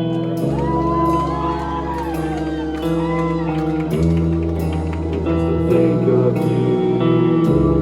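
Live rock band playing a song: sustained electric guitar chords over bass notes that change every second or two, with a melodic line bending in pitch above them and scattered cymbal hits.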